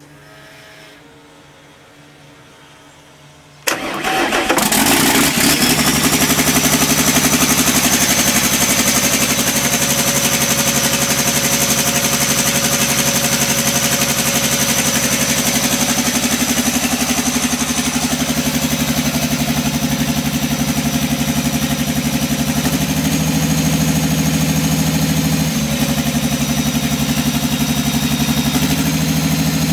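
Sisu Diesel 84CTA six-cylinder turbodiesel in a generator set cranking briefly and firing about four seconds in, then running steadily at its fixed generator speed with a high whine over the engine note; the speed shifts slightly a couple of times near the end. The owner starts it to show how it runs with a running fault: it limps.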